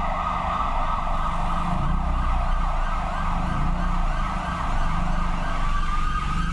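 Ambulance siren sounding a rapid yelp, changing near the end to a slower wail, over the low rumble of car engine and road noise.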